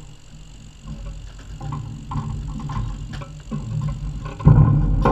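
Lambs moving through a sheep auto drafter's race and crate: irregular knocks and clatter of hooves and gates, over a low rumble that grows louder and jumps up near the end.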